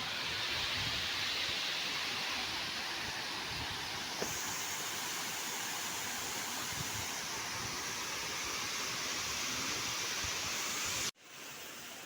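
Waterfall, a steady rush of falling water that cuts off suddenly about a second before the end.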